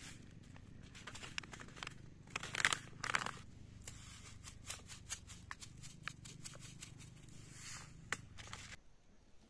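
Foil-lined plastic seed packet crinkling and crackling as it is opened and handled, loudest about two and a half to three seconds in. Near the end a short rustle as small seeds are poured out into the hand.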